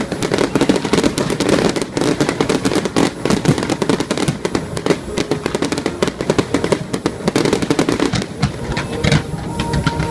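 Fireworks display: a dense, continuous barrage of crackling pops and bangs from bursting shells, thinning a little near the end.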